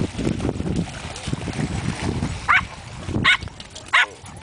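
A dog barking in short, sharp yips, three of them under a second apart in the second half. Before them, a low rumbling noise.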